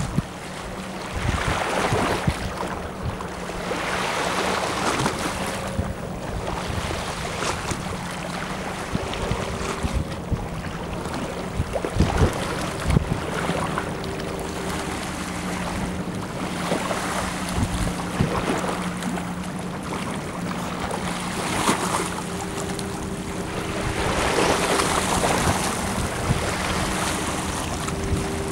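Tugboat engine running steadily with a low hum while towing a barge, with gusts of wind buffeting the microphone and the wash of waves on the river.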